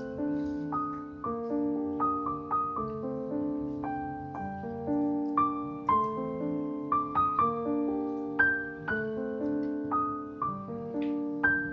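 Background piano music: a calm melody of struck notes that fade away, a few notes a second.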